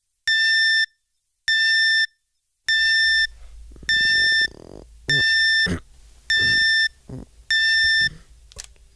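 Digital alarm clock beeping: a high, even electronic beep about half a second long, repeating a little more than once a second, seven times, then stopping near the end. From about three seconds in, a low hum and a person's low groans come in under the beeps.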